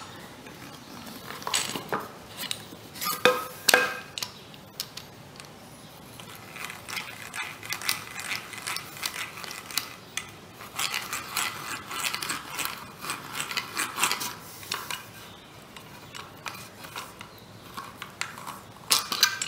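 Hand-cranked eggbeater drill turning a small bit into a wooden board to bore a starting hole: its gears whir and click in spells of cranking, with a few short knocks early on.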